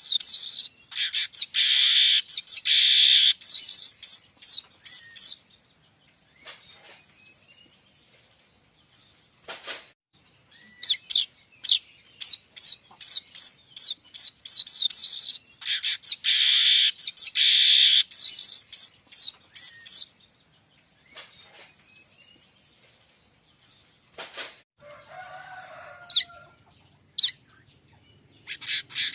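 Manyar kembang weaver song: a fast string of sharp, high ticking chirps running into a buzzy wheeze, given in two matching bouts with quiet gaps between. Near the end a fainter, lower call is heard.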